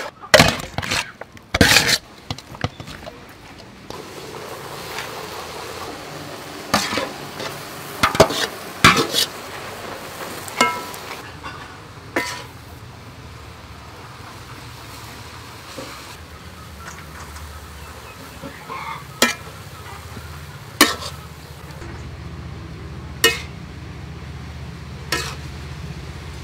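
Noodles stir-frying in a wok with a steady sizzle, and a metal utensil now and then clanking and scraping against the pan. The first couple of seconds hold a quick run of loud clatters of metal cookware.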